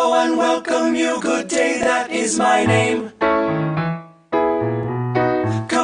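Music with singing voices over keyboard. A deep bass line enters about three seconds in, and the music drops out for a moment just after four seconds.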